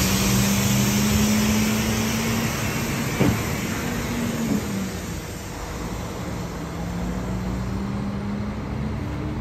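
Diesel engine of a semi-trailer truck running as it pulls away, its note climbing slightly and then dropping back, the sound growing fainter as the truck moves off. A single short knock about three seconds in.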